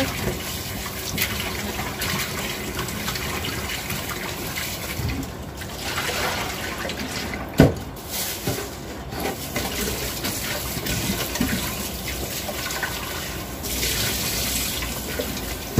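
Tap water running steadily while raw chicken is washed, with one sharp knock about halfway through.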